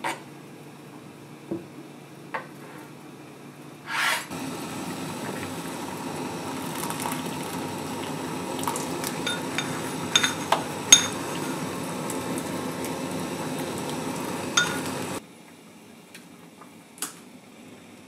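Pot of broth boiling with a steady bubbling, after a knock about four seconds in, and with several sharp clinks of tableware against the pot around the middle. The bubbling cuts off suddenly near the end.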